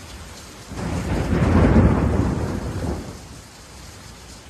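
A roll of thunder swells about a second in and dies away over the next two seconds, over a steady background of rain.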